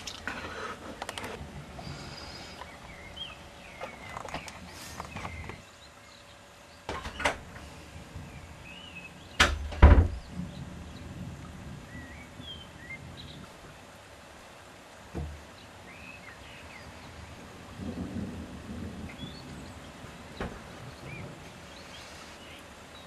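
Thunder from a lightning storm: one loud, close clap about ten seconds in, with a deep rumble, the loudest sound here. A shorter sharp crack comes a few seconds before it.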